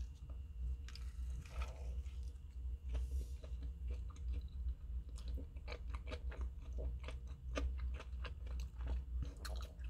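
A person chewing a mouthful of black-bun chicken burger close to the microphone: irregular wet clicks and soft crunches, coming thicker from a few seconds in, over a low steady hum.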